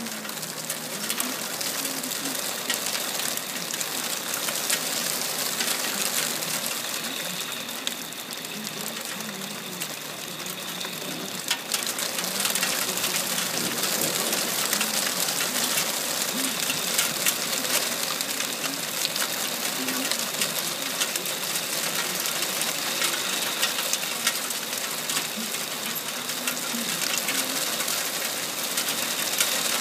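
Small hail mixed with rain pelting a wooden deck and lawn: a dense patter of countless tiny hits over a steady hiss. It grows a little heavier about twelve seconds in.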